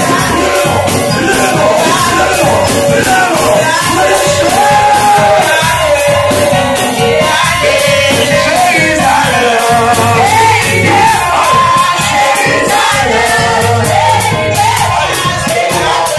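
Loud worship music at a church service: a man sings through a microphone over a steady beat, with the congregation's voices joining in.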